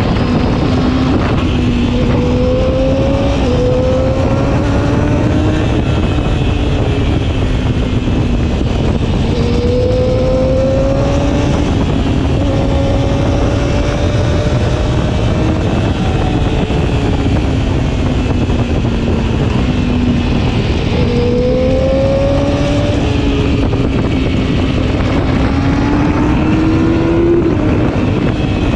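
Yamaha R6's inline-four engine under way, heard from the rider's seat. Its pitch rises in long glides and drops back several times as the bike accelerates and eases off, over a steady rush of wind noise.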